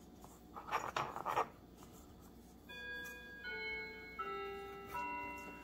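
A few short scraping strokes of handwork on the cutting mat about a second in. About halfway through, a slow run of clear, bell-like chime tones begins, several notes ringing together and changing about every half second.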